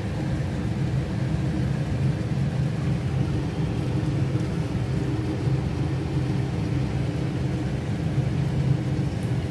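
A steady low mechanical hum and rumble with a few faint steady tones in it, holding at an even level without break.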